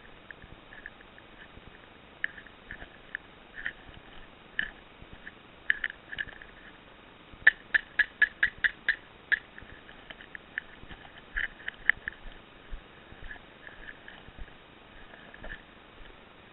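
Airsoft pistol firing a quick string of about eight shots in under two seconds, sharp clicks muffled by a waterproof camera cover. Scattered single clicks and cracks come before and after the string.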